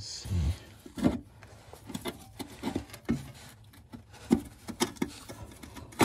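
Irregular light knocks, clicks and rubbing of hand tools and metal parts while the old transmission mount is being unbolted under the car.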